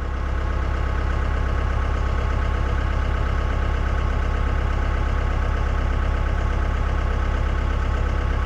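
Mahindra 2638 tractor's diesel engine running steadily at a constant speed, with an even rapid pulsing.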